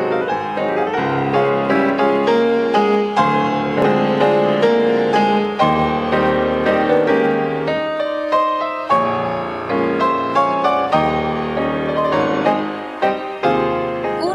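Instrumental theme music led by piano, a quick run of many notes over a fuller accompaniment.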